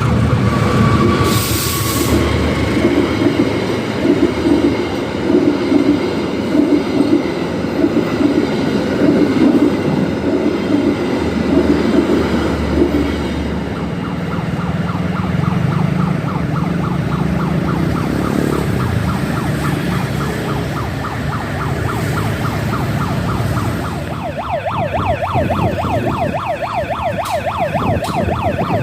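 Kamandaka passenger train running over the level crossing, its wheels clattering in a regular rhythm over the first half. About halfway the crossing's ambulance-like warning siren wails, rising and falling fast, and it grows louder near the end.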